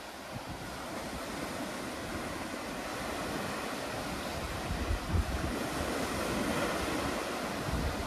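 Ocean surf breaking and washing up a black sand and pebble beach, swelling gradually as a wave rushes in, with wind gusting on the microphone about five seconds in and near the end.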